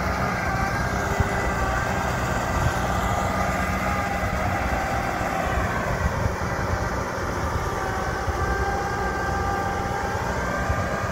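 Diesel engine of farm machinery (tractor or rice combine harvester) running steadily, a low rumble with a high whine over it that dips slightly in pitch midway and comes back.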